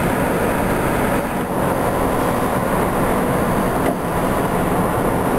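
Steady road and wind noise of a moving car, heard from inside the cabin.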